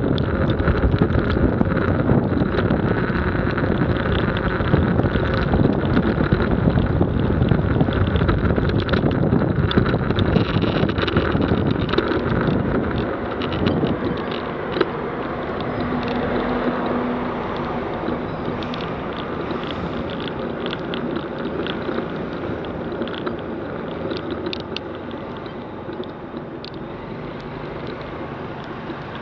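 Wind rushing over the microphone of a vehicle-mounted action camera, with road noise from a wet street. A little before halfway the rush drops away as the vehicle slows in traffic, leaving a quieter steady rumble with scattered light ticks.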